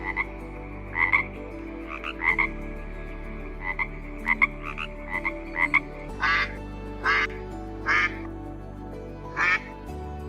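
Frogs croaking in short, repeated calls. About six seconds in, longer and louder calls take over, roughly one a second, all over a soft sustained music pad.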